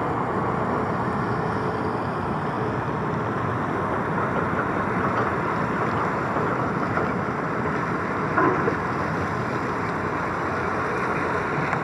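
Steady noise of distant heavy construction machinery working, with one short clank about eight seconds in.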